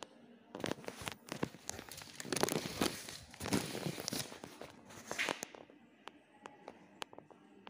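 Plastic bag wrapping crinkling and rustling as it is handled, a dense crackle starting about half a second in and dying down after about five seconds, leaving a few faint clicks.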